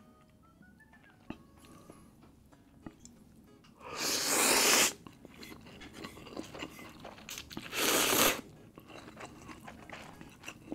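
A person eating instant laksa noodles close to the microphone: two loud slurps, about four and eight seconds in, with soft chewing sounds between and after them.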